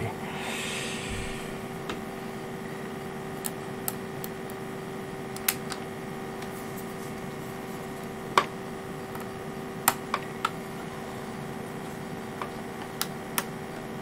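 Small screwdriver driving a tiny M.2 screw into an NVMe SSD's mount on a single-board computer: a handful of light, scattered clicks and taps of metal on metal and circuit board, over a steady background hum.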